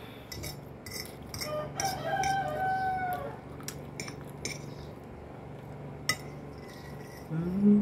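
A rooster crows once, about two seconds in, for about a second and a half, over light clinks of a metal fork against a glass plate. Near the end a person gives a short, rising hum.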